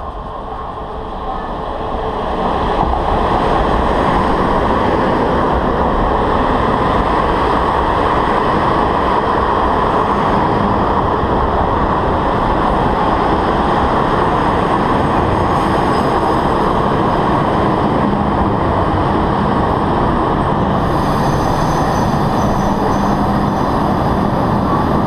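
Chu-Kuang express passenger train pulling into the station alongside the platform, its coaches and wheels making a loud, steady rolling noise that builds over the first few seconds as the train arrives. A hiss joins near the end.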